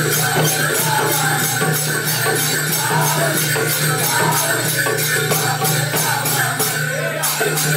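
Konkani folk music with a fast, steady beat of jingling percussion over a sustained low tone and a moving melody.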